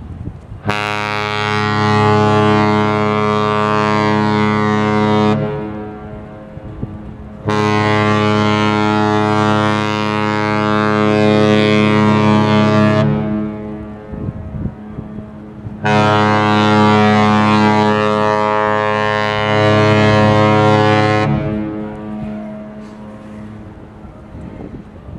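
Cruise ship AIDAblu's horn sounding three long blasts on departure, each a deep steady tone of about five seconds with a short pause between.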